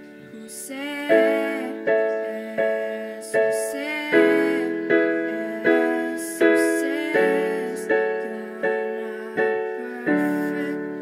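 Piano playing block chords in a steady pulse, about one chord every three-quarters of a second, each ringing and fading before the next strike. The harmony changes every four strikes or so.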